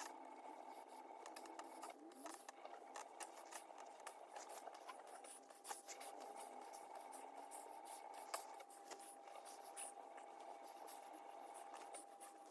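Near silence: faint scattered clicks and light rustles over a faint steady hum.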